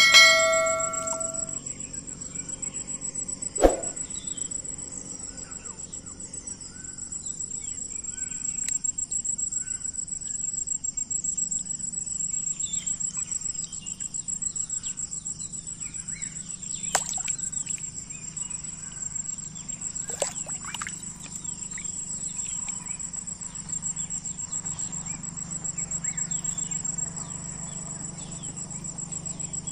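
Insects trilling steadily at a high pitch, a fine pulsing buzz, with faint scattered chirps. A short electronic chime sounds at the very start, and a single knock comes a little under four seconds in.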